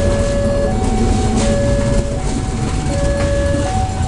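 Level-crossing warning alarm sounding two alternating tones, low and high, each held about three-quarters of a second, over the low rumble of a diesel locomotive passing over the crossing.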